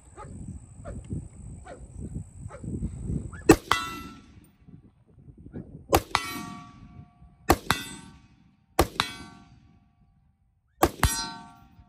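Five rifle shots from a .308 AR-10, the first about three and a half seconds in, each crack followed by the ringing clang of a hit on a steel silhouette target.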